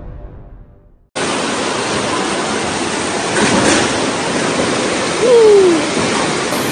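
Floodwater rushing as a loud, steady torrent through a street, starting abruptly about a second in as the end of the fading music dies away. A short falling tone, likely a voice, cuts through about five seconds in.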